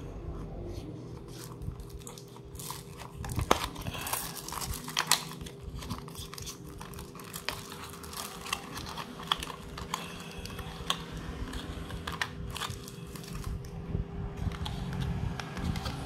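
Clear plastic wrapping and blister tray of a boxed diecast model car crinkling and tearing as it is cut off and pulled out, with irregular crackles and clicks throughout.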